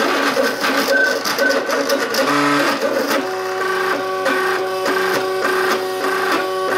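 MakerBot Cupcake CNC 3D printer's stepper motors whining as the print head moves, the pitch changing with each move during the first three seconds. From about three seconds in, a steady tone broken at an even rhythm of about three times a second.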